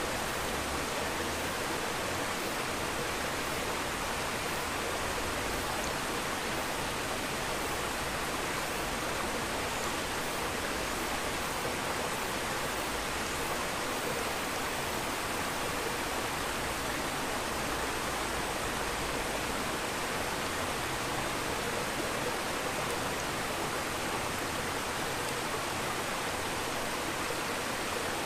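Steady rushing water noise, an even hiss with no breaks or changes in level.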